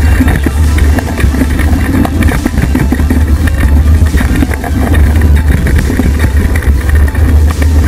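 Heavy low rumble of wind and trail vibration on a bike-mounted action camera as a mountain bike rides fast over a dirt trail, with a constant rattle of knocks from the bike and tyres over roots and leaves.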